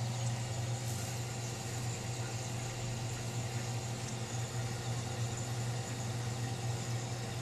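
Steady low hum of a running aquarium pump, with an even hiss over it.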